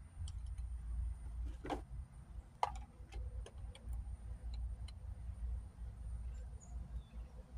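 Scattered small clicks and taps of a security light fixture being handled and lined up against an outdoor electrical box, with two louder knocks about two and three seconds in, over a steady low rumble.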